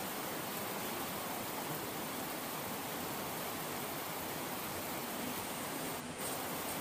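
Heavy rain falling steadily, an even hiss that dips for a moment near the end.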